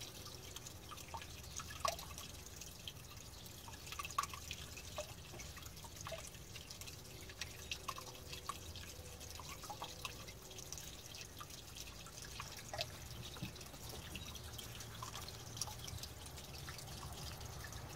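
Water dripping in irregular small plinks and clicks, some with a short pitched ring, over a low steady hum.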